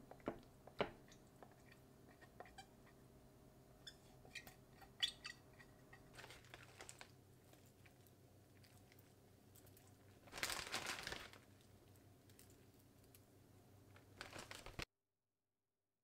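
Quiet kitchen handling sounds: a few light clicks and taps as toppings go into a glass container, then a plastic zip-top bag rustling and crinkling about ten seconds in as its contents are sprinkled out, over a faint steady hum. The sound cuts off abruptly near the end.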